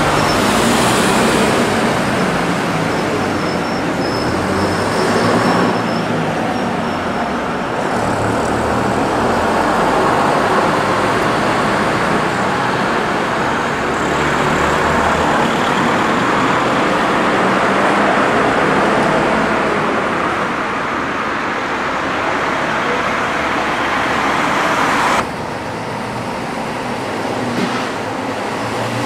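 Street traffic: cars passing and the diesel engine of a vintage half-cab double-decker bus running, a steady wash of engine and tyre noise that drops suddenly near the end.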